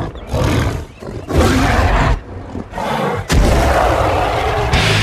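Three loud, separate animal-like roars open a heavy metal track. About three seconds in a longer sustained roar begins, and just before the end the distorted heavy metal band comes in at full volume.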